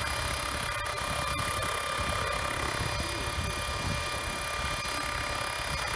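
Small hydrogen fuel-cell-powered unmanned helicopter hovering low. Its electric drive gives a steady high whine of several fixed tones over a low rumble from the rotor.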